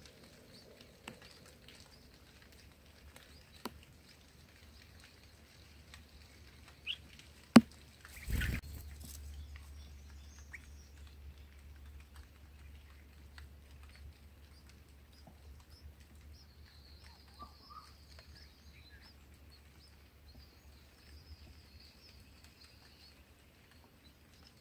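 Quiet background with faint, high bird chirps in the second half. A few sharp clicks, the loudest about seven and a half seconds in, are followed by a short rustling burst and then a faint steady low hum.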